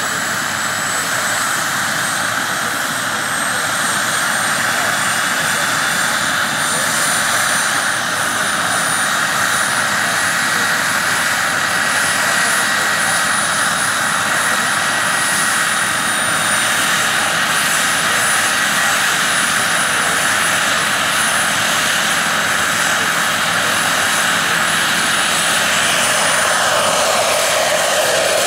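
Turbine-powered RC scale model of a Eurocopter H120 Colibri running on the ground, its small gas turbine giving a high, steady whine that climbs slightly in pitch over the first seconds, over the rush of the spinning main rotor. Near the end the rotor sound deepens as the model lifts off.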